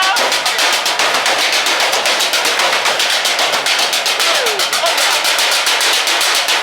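Street percussion troupe drumming on trash cans and buckets, a fast, even beat of sharp strikes, with faint crowd voices underneath.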